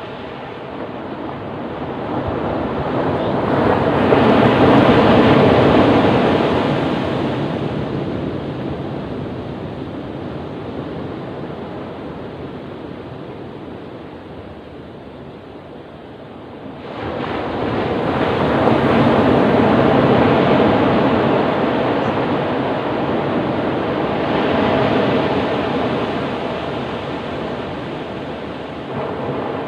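Ocean surf: waves breaking and washing in slow swells of rushing noise. One wave builds to a peak about five seconds in, ebbs away, and another surges in abruptly just past the middle, followed by a smaller swell near the end.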